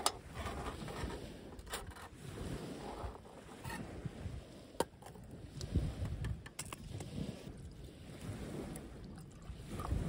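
Light metal clinks and taps as a folding aluminium windscreen is set around a mess tin and a metal mug is set down on its lid, over a low fluctuating rumble.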